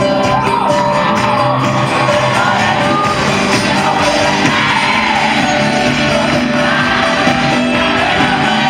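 Live band music through a concert PA, heard from among the audience, with the crowd singing along and shouting.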